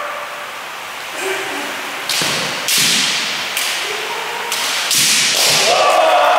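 Bamboo shinai cracking against each other and against armour in a kendo bout: a quick series of about six sharp strikes starting about two seconds in. A shouted kiai rises near the end.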